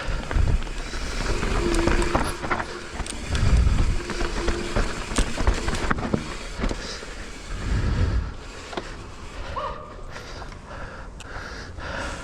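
Mountain bike descending a steep dirt trail: tyres running over dirt with scattered knocks and rattles from the bike, and gusts of wind on the microphone.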